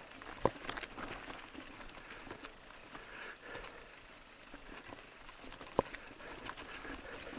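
Mountain bike rolling down a dirt singletrack: tyres running over stones and roots, with irregular rattling and clicking from the bike and two sharp knocks, one about half a second in and one near the end.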